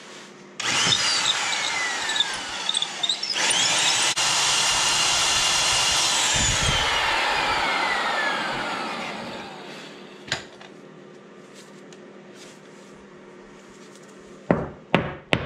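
Heavy-duty right-angle electric drill boring into the steel crankshaft end of a Wisconsin VH4D engine through a guide sleeve. It runs for about three seconds, stops briefly, starts up again and runs steadily, then winds down with falling pitch about eight to nine seconds in. A few sharp knocks come near the end.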